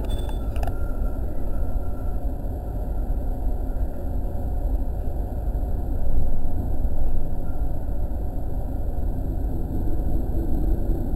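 JR E217 series electric train pulling away from a station, heard from just behind the driver's cab: a steady low rumble of motors and wheels on the rails. There are a few sharp clicks in the first second, and the rumble grows a little louder about six seconds in.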